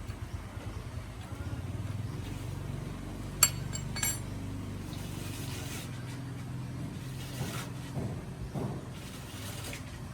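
A low, steady mechanical hum, like a small engine running, with two sharp metallic clinks a little over half a second apart about a third of the way in.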